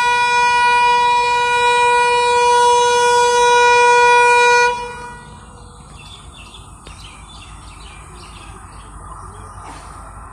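EMD WDP-4D diesel locomotive's horn sounding one long steady note for about five seconds as the train approaches. After the horn stops, birds chirp over a low rumble that grows as the train draws nearer.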